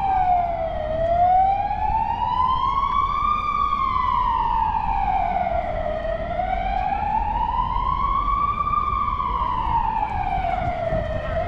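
Emergency vehicle siren wailing, its pitch rising and falling slowly, about one full cycle every five seconds, over a low background rumble.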